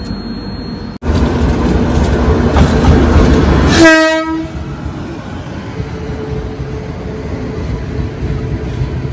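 An Indian Railways WAP-7 electric locomotive hauling a passenger express passes close by, rumbling loudly, and gives one short horn blast about four seconds in. Its coaches then roll past with a steady rumble and clatter of wheels on the rails.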